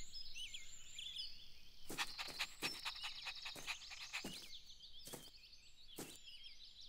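Soft garden ambience of birds chirping, with a series of short sharp taps starting about two seconds in, several close together and then a few more spread out.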